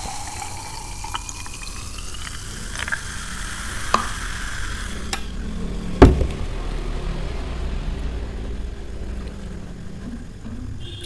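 Fizzy soft drink poured from a plastic bottle into a glass mason-jar mug, its pitch rising as the jar fills, over the hiss of carbonation. About six seconds in comes one sharp knock, the loudest sound, then the drink keeps fizzing.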